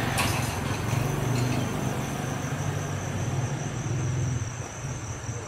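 A road vehicle's engine idling with a steady low hum, easing off slightly near the end, under a constant high-pitched insect trill.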